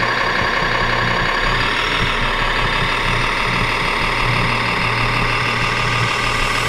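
Radio-controlled model truck running steadily: an engine-like idle with a low pulsing hum under a steady whine that holds one pitch.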